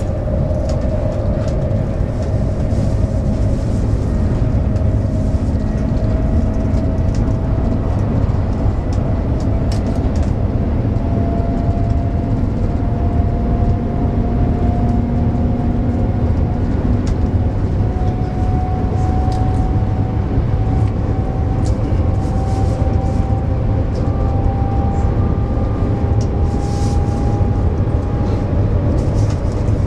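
Interior noise of the Shanghai maglev train accelerating from about 180 to 250 km/h: a steady low rumble and rush, with a faint tone that rises slowly in pitch as the speed builds.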